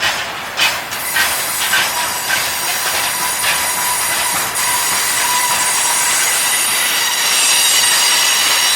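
Freight train wheels rolling over the rails: a few sharp clacks over rail joints in the first seconds, then a steady, high-pitched wheel squeal.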